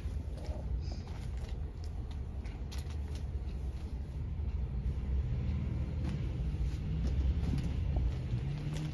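A steady low hum throughout, with faint rustling and soft short clicks of a silk saree being handled and unfolded by hand.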